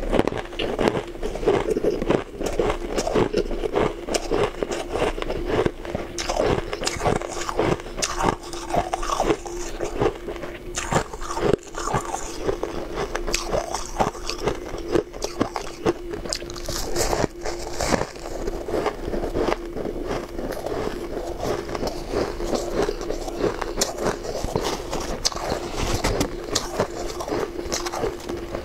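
Soft powdery ice being bitten and chewed, a continuous run of dense crunching and crackling, with hands scraping and squeezing the ice in a metal bowl.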